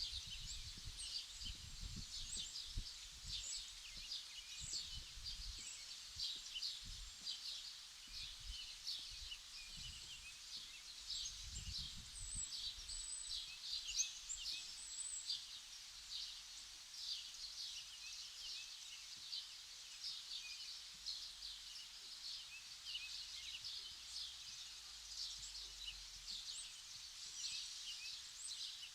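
Many birds chirping continuously in quick short calls, over faint low rumbling that comes and goes mostly in the first half.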